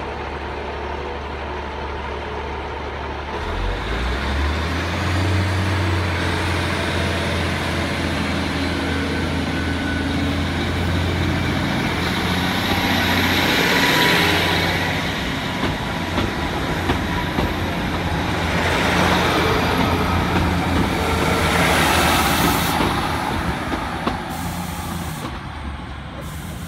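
Diesel multiple unit's underfloor engines running beside the platform, the low engine note stepping up about four seconds in as the train works. Louder rushes of engine and wheel noise swell twice, near the middle and again later.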